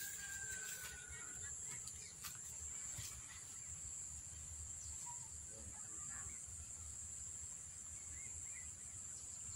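Insects chirring steadily in a high, even drone, over a low rumble and a few faint clicks.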